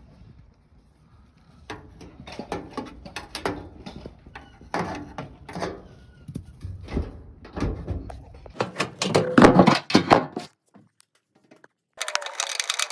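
Irregular knocks and clattering from dryer parts being handled, loudest about nine seconds in, then a short pause and a steady hum with a wavering tone near the end.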